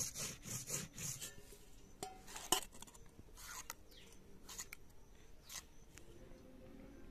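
Spices being ground on a flat stone slab: rhythmic rubbing strokes of the grinding stone for about the first second, then scattered scrapes and clinks, with one sharper clink near the middle.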